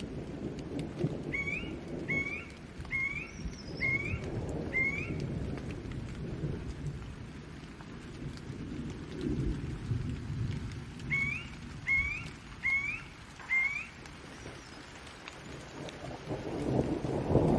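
Steady rain with low rolling thunder that swells up loudest near the end. A bird calls twice in a run of short rising chirps, about one a second: five early on the first time, four about eleven seconds in.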